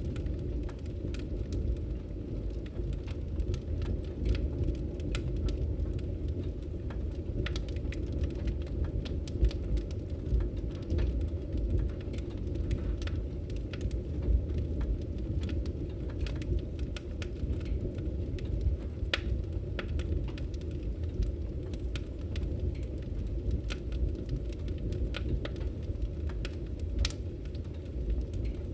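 Wood fire in a fireplace burning steadily: a low rumble of flames with frequent irregular sharp crackles and pops from the burning logs.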